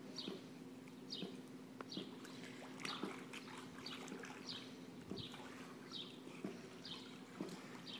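A dog whimpering in short, high, falling whines about once a second, with light water splashing.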